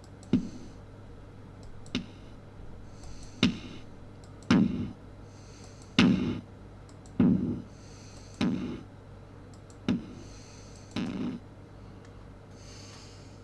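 Electronic kick drum one-shot samples played one after another, about nine separate kicks roughly a second to a second and a half apart, each a sharp click at the start followed by a low thump, some with a longer tail.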